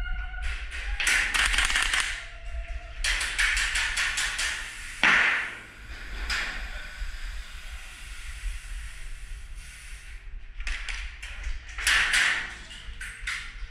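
Airsoft guns firing several bursts of rapid shots, about a second in, again around three to four seconds in, and near the end. A short falling whoosh comes in the middle, over a steady low hum.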